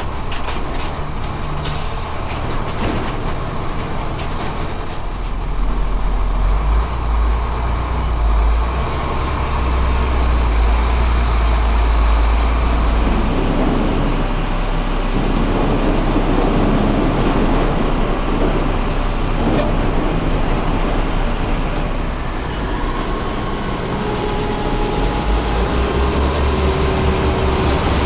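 Heavy corn-hauling truck's engine running as the truck drives across the field toward the corn picker, a steady low rumble that grows heavier for several seconds in the middle. A few sharp clicks near the start.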